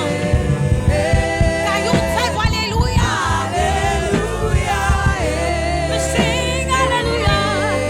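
Gospel praise singing with a band: voices sing a melody over a steady bass and keyboard bed with a regular drum beat.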